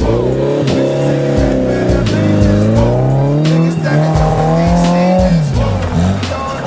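Backing music with a steady drum beat and a held, sliding bass line.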